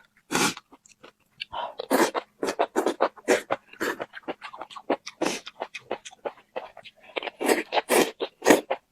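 Close-miked chewing and crunching: many short, crackly, irregular bites and mouth sounds, several a second.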